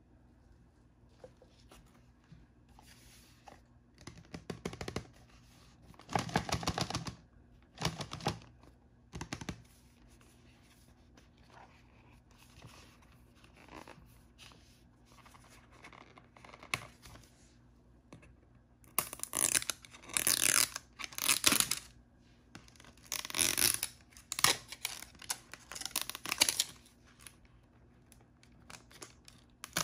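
Plastic or foil packaging of blind bags being torn open by hand, in a series of short ripping bursts: one group about four to ten seconds in, and a louder group about nineteen to twenty-seven seconds in.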